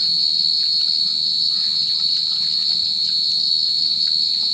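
A steady, high-pitched insect chorus, crickets trilling without a break at one unchanging pitch.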